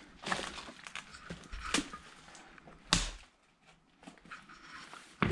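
Footsteps crunching over debris and rubble on a floor, with scattered crackles and a few sharp knocks, the loudest about three seconds in.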